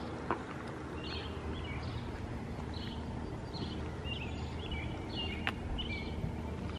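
A small bird chirping over and over, short calls about once or twice a second, over a steady low background rumble. One sharp click about five and a half seconds in.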